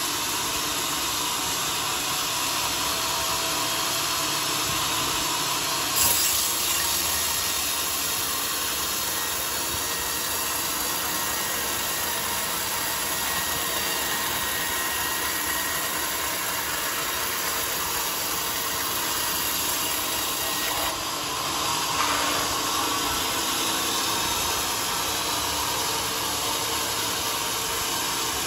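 Band sawmill blade cutting lengthwise through a teak log, a steady sawing noise over the machine's running. It grows briefly louder about six seconds in and again around twenty-two seconds.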